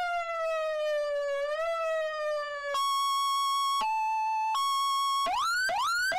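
Electronic police-style motorcycle siren unit cycling through its tones. A slowly falling wail with a brief step up gives way to a two-tone hi-lo, steady high tones alternating in pitch. Near the end come fast rising yelp sweeps, about two a second.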